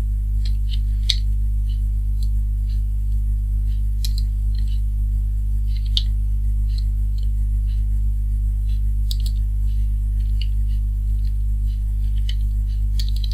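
Computer keyboard keystrokes: short irregular clicks a few times a second, over a loud steady low hum.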